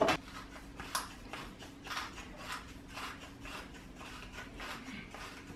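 Hand-twisted pepper mill grinding black pepper: a run of short, dry crunching clicks, a few a second, with a faint steady hum underneath.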